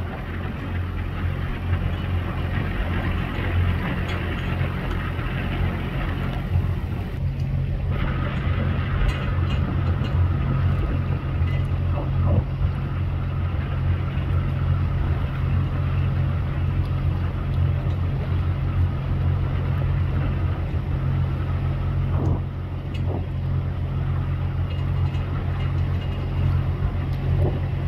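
A boat engine running at a steady speed with a low, even hum, its note firming up about seven seconds in, under wind and water noise.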